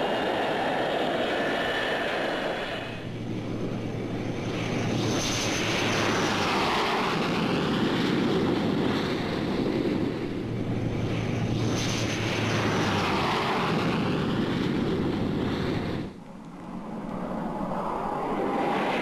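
Jet engine roar of English Electric Lightning fighters taking off and climbing, swelling and fading twice as aircraft pass, each pass with a faint falling high whine. The roar drops away suddenly near the end.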